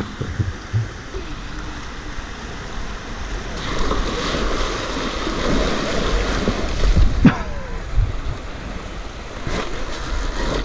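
Rushing water of a shallow mountain stream with wind rumbling on the microphone. Midway the electric trial bike rides through the water and the splashing grows louder, with one sharp knock just after.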